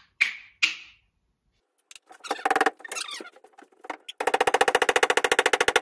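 Axe head being driven onto its wooden handle: two sharp knocks with a short ring early on, a few scattered knocks, then a fast, even rattle of knocks, about twenty a second, for the last two seconds.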